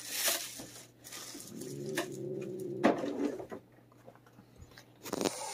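A cat's low, drawn-out growl lasting about two seconds, near the middle, the defensive warning of a fearful, aggressive cat, after a short breathy hiss at the start.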